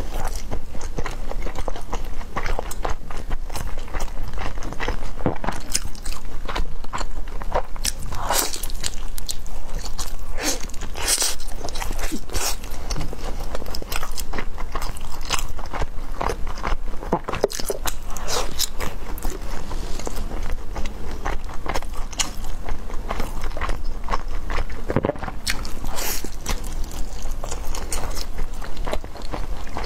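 Close-miked eating of glutinous-rice shaomai: bites and chewing with many sharp wet smacks and clicks of the mouth, going on continuously.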